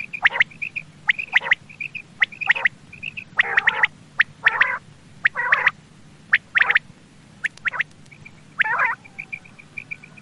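Common quail calling about once a second, with sharp short notes, often in pairs, mixed with harsher raspy calls, over a faint, fast, steady high ticking.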